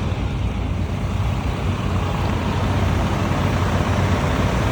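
Heavy truck engines running steadily at a concrete pour, with a constant low hum.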